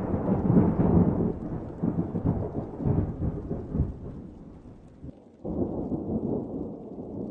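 Wind buffeting the microphone: gusty low rumbling that fades away, then rises sharply again about five and a half seconds in.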